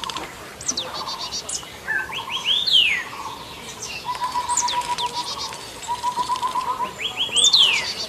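Several birds calling: short sweeping whistles and quick trills. Twice, once a few seconds in and again near the end, a phrase of rapid rising notes ends in a long falling whistle. Between them come runs of fast, even pulsed notes lower in pitch.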